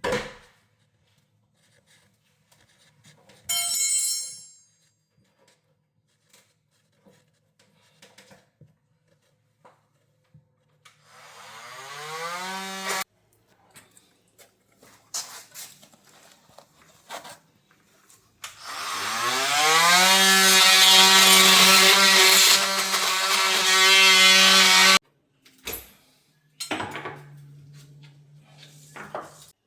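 Corded power tool cutting the wooden form from under a kitchen cabinet. Its motor winds up in pitch and runs steadily for about two seconds, then again for about six seconds, cutting off abruptly each time, with scattered knocks and scrapes in between.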